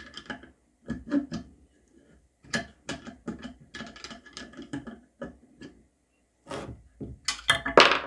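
Irregular metallic clicks and clacks of a Victorinox Venture Pro's bit driver being worked back and forth, ratchet-style, to drive a hex-drive screw into wood. There is a short pause about six seconds in, and a louder cluster of clicks near the end.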